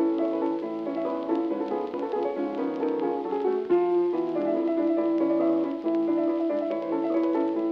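Instrumental background music, many notes moving over a long held low note, with a brief break about four seconds in.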